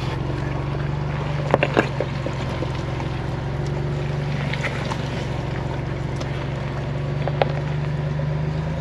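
Ford Bronco's engine pulling steadily at low revs as it crawls up a rutted dirt trail, rising slightly in pitch near the end. A few short sharp clicks come through, a couple of them about one and a half seconds in and one near the end.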